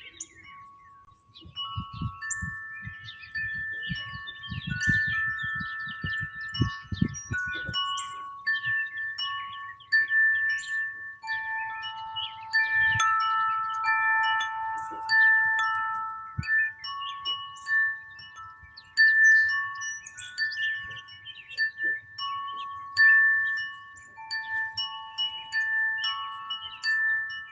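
Wind chimes ringing, with struck notes sounding at irregular moments and holding on, overlapping one another. Low rumbling thumps sound underneath during the first several seconds.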